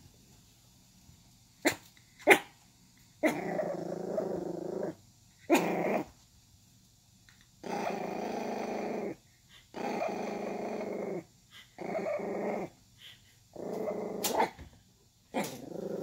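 Pomeranian puppy growling in a string of drawn-out growls, about seven of them, each lasting up to a second and a half with short gaps between. Two short sharp sounds come just before them, about two seconds in.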